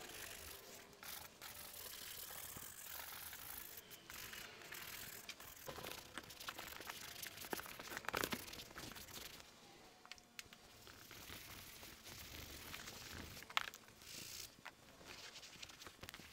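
Faint rubbing and scrubbing of a brush and microfiber towel working over a leather car seat, with scattered light clicks and knocks.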